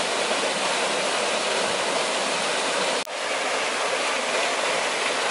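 Small waterfall pouring into a river pool: a steady, loud rush of falling water, broken by a brief dip about three seconds in.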